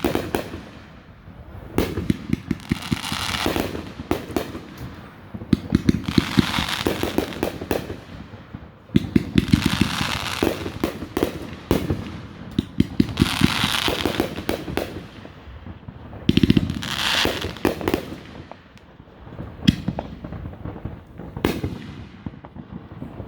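Aerial fireworks display: volleys of bangs and rapid crackling, about every three to four seconds, each with a hiss.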